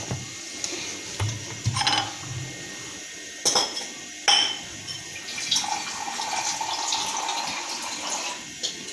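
Small amounts of water being added to flour dough in a bowl, with a few sharp clinks against the glass or bowl in the first half and then a steady trickle of pouring water.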